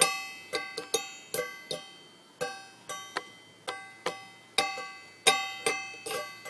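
Instrumental music: a slow line of single notes, about two a second, each starting sharply and ringing away.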